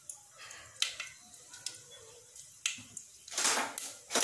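Mustard seeds starting to crackle in hot oil in a stainless steel pan: scattered sharp pops, more of them near the end, the seeds just beginning to splutter.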